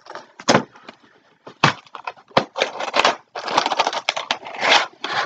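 Cardboard box and packaging being handled and rummaged through: several sharp knocks, then a stretch of crackling rustle in the second half.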